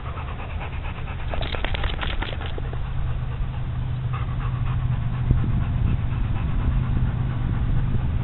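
Chesapeake Bay retriever panting in quick short breaths, with a flurry of rapid breaths about a second in, over a steady low rumble.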